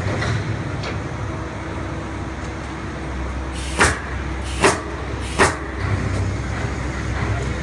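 Three short, sharp strokes about 0.8 seconds apart, a little under halfway through, from a worker securing wooden glass crates inside a steel shipping container. A steady low rumble runs underneath.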